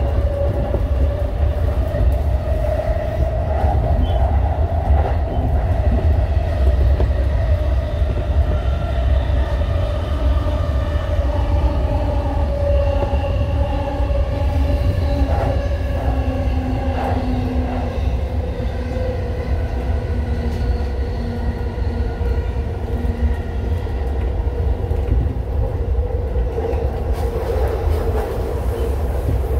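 Cabin running noise of a JR Chuo Line Rapid commuter train (E233 series EMU) under way: a deep steady rumble under a whine from the electric traction motors whose pitch drops slightly, with a few clicks from the wheels over rail joints.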